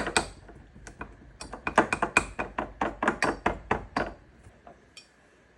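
A small spoon clicking rapidly against a small bowl as it stirs and mashes half-melted chocolate pieces, about five or six ringing clicks a second. It stops about four seconds in.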